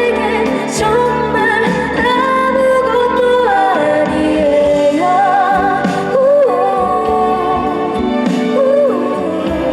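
A woman singing a slow trot song live over band accompaniment, with long held notes sung with vibrato.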